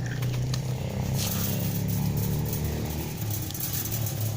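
A steady low engine hum, like a motor vehicle running nearby.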